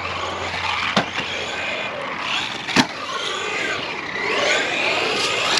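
Brushless electric motor of an RC truck whining up and down in pitch with the throttle as it drives, with two sharp knocks of the truck hitting the ground, a small one about a second in and a louder one near three seconds.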